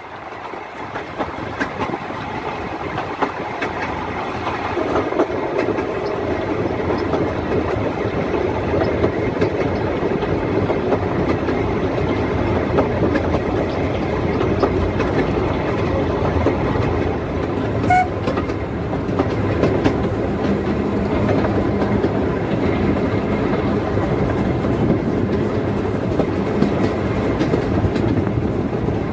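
Narrow-gauge Quarry Hunslet steam locomotive running with its train, heard from directly behind the tender. Its steady running noise swells over the first few seconds and then holds. A short sharp click about 18 seconds in.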